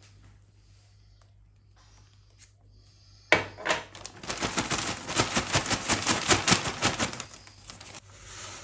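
Plastic zip-lock bag holding crushed biscuit crumbs and melted butter crinkling in a fast run of crackles as it is worked by hand to mix them. It starts suddenly about three seconds in and stops near the end.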